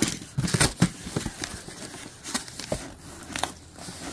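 Packaging being handled while unboxing: irregular crinkling and rustling with light clicks and knocks.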